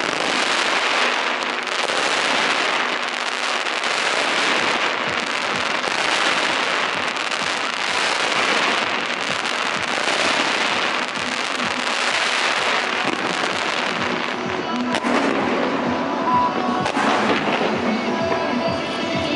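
A fireworks display of ground-mounted fountains and shooting comets, giving a dense, continuous hissing crackle, with music playing underneath.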